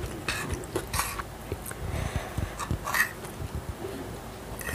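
Close-miked mukbang eating sounds: chewing with wet mouth clicks and smacks. Near the end, a fork scrapes through the noodles.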